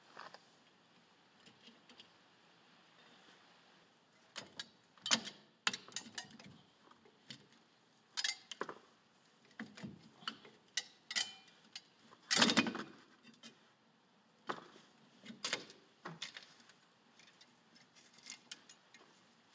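Metal clinking and clattering as the Peugeot 406's rear drum brake shoes, return springs and adjuster strut are unhooked and lifted off the backplate by hand. It is an irregular run of sharp clicks and clanks, the loudest about twelve seconds in.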